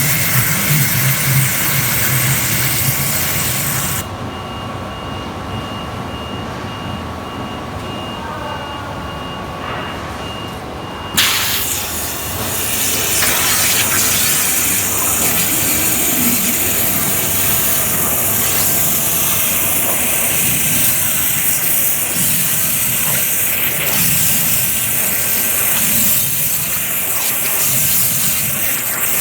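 CNC waterjet cutter's high-pressure water jet hissing loudly as it cuts plastic. Around four seconds in the hiss drops away to a quieter hum, and it comes back suddenly about eleven seconds in.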